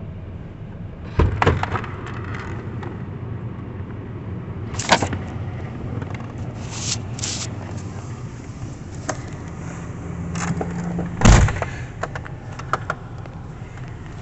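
A phone being handled and set up inside a car: knocks and rubbing against the microphone, the loudest about 11 seconds in, over the car's steady low engine hum.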